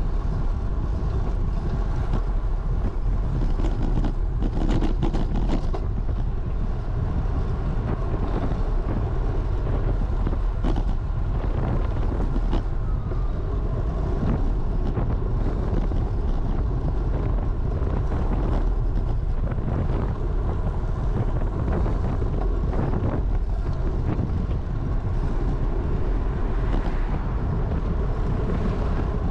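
Steady wind rumble on the microphone of a camera moving along with a bicycle through traffic, with a few brief clicks.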